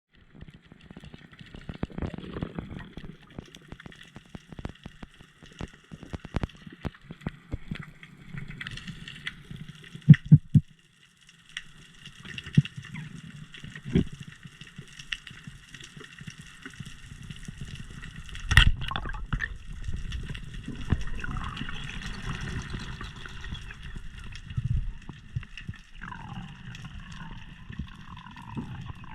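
Underwater sound as heard from a diver's camera: a steady crackle of small clicks with water sloshing and gurgling. A few heavy thumps come about ten seconds in, and one sharp knock near the middle is the loudest sound.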